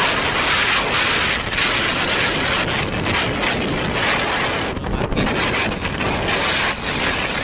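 Wind rushing over the microphone of a phone carried on a moving motorcycle: a steady noise with a few brief dips that drowns out the bike itself.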